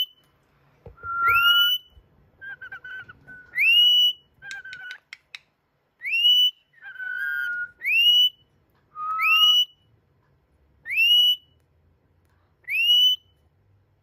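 Rainbow lorikeet giving a string of short rising whistles, about seven in all, each sweeping up to a held note and repeating every second or two. A lower steady note sounds under several of them, and a few clicks fall around the middle.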